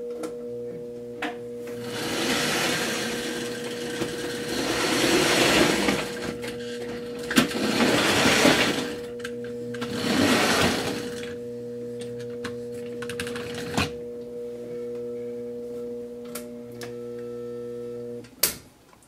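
OO gauge model steam locomotive running along the track under DC power: its small electric motor and wheels make a rushing whirr that swells three times, with a few sharp clicks. Beneath it runs a steady electrical hum from the powered track and motor, which cuts off suddenly near the end when the power is switched off.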